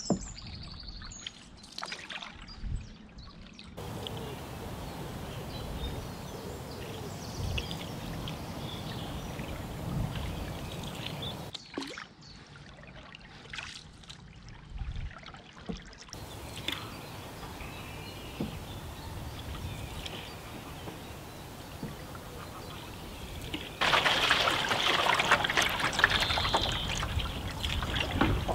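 Wooden canoe paddle strokes through calm river water, with water trickling and dripping off the blade. The water noise steps up louder near the end.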